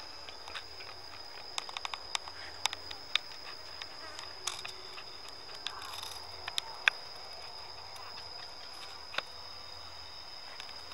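Steady high-pitched insect trill, like a cricket, over outdoor forest ambience, with scattered sharp crackles and clicks, most of them in the first half and one more near the end.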